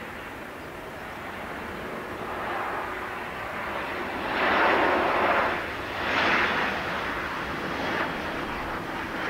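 Boeing 737-700 airliner's CFM56-7B turbofan engines on landing approach: a rushing jet noise that builds as the plane comes in low over the runway, swelling loudest twice around the middle.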